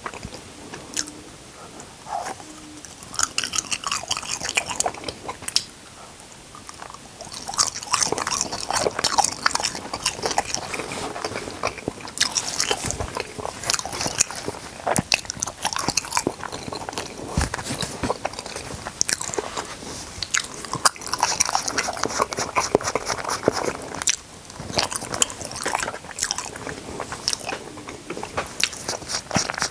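Close-miked eating: crunchy bites and chewing, dense with sharp crisp crackles. A few separate bites come early, then near-continuous crunching from about a quarter of the way in.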